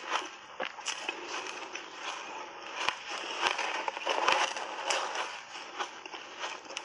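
Close-up crunching and chewing of frozen shaved ice coated in matcha powder: a dense run of crackles with sharper cracks now and then, loudest around the middle.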